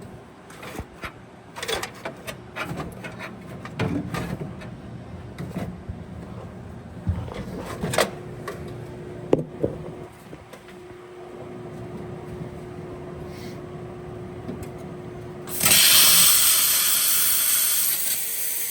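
Workshop sounds of tools and metal parts being handled: scattered knocks and clinks for the first half, then a loud, even hissing rush starting about three seconds before the end.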